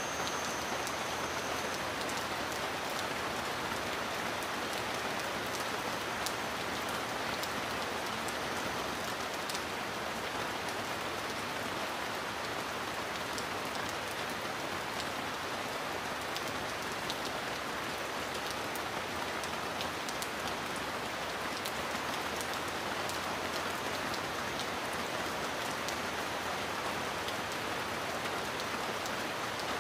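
Heavy rain falling steadily: a dense, even hiss with scattered sharp taps of single drops and no thunder.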